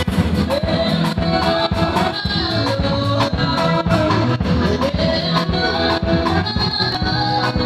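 Background music with guitar and a steady, regular beat.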